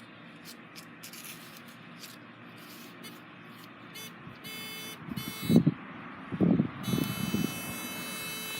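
Metal detector's buzzy, high-pitched target tone sounding twice, the second time held on, with a few loud thumps in between.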